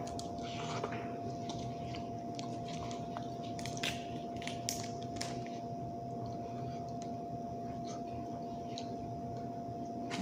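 A person chewing and eating seafood, with a few short wet clicks and smacks, over a steady electrical whine.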